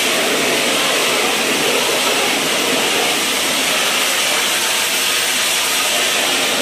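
High-pressure water jetter wand spraying a jet of water onto a metal channel drain grate and the concrete around it: a loud, steady hiss of spray, washing the grate down.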